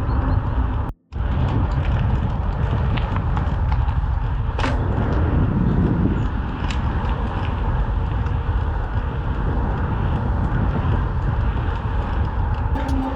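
Crosswind buffeting the microphone as a steady low rumble while a mountain bike rolls along asphalt. The sound cuts out for a split second about a second in.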